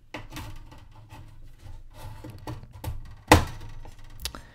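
Printed circuit board sliding into a slot of the SCELBI 8B's metal card cage and seating in its edge connector: a run of small scrapes and clicks, then a sharp knock about three and a half seconds in, with a lighter click soon after.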